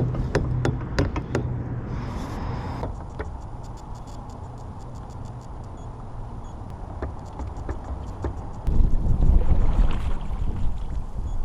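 Wind buffeting the microphone, with a strong gust about nine seconds in. A run of light clicks and ticks sits near the start.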